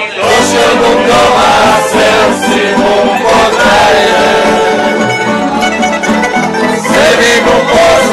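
A small acoustic string band playing live: strummed small-bodied plucked string instruments over an upright bass, with several men singing along loudly.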